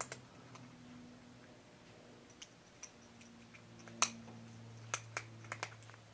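A cat eating from a bowl, making irregular sharp clicks, with a cluster of them in the second half and the loudest about four seconds in. A faint steady low hum runs underneath.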